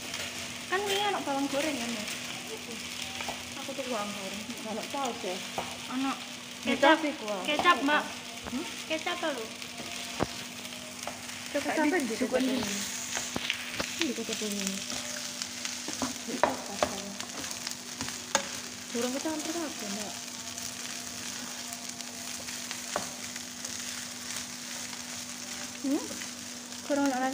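Fried rice sizzling in a nonstick frying pan while a spatula stirs, tosses and scrapes it in irregular strokes. A steady low hum runs underneath.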